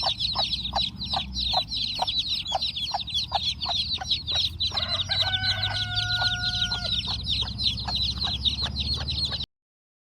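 Chicken sound effect: a dense chorus of rapid, high-pitched chicken calls with lower clucks about three times a second over a low rumble. It cuts off suddenly about nine and a half seconds in.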